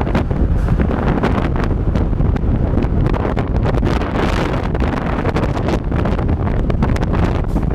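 Heavy wind buffeting on the microphone of a camera on a motorcycle riding at speed: a steady low rush broken by constant short gusty crackles.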